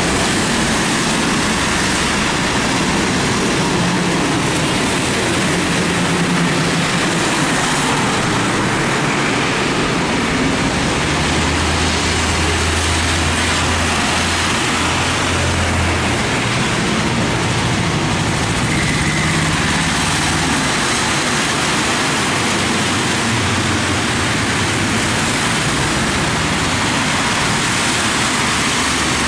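Heavy diesel trucks passing one after another on a wet road, with a steady hiss of tyres through the water. A low engine drone swells and fades as the trucks go by, loudest about halfway through.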